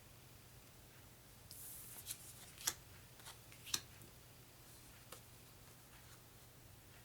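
Cardboard game cards being handled and set down: a brief rustle, then a few sharp taps, the loudest two about a second apart, over a low steady hum.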